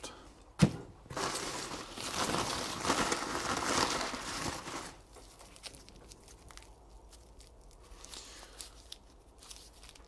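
Dry, papery garlic skins crackling and tearing as a garlic bulb is handled and pulled apart into cloves. There is one sharp knock about half a second in, then a few seconds of dense crackling, and after that fainter scattered crackles.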